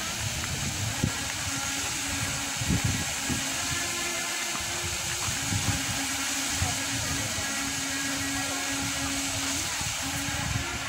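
Wind buffeting the microphone in irregular low rumbles over a steady outdoor hiss, with a few short thumps.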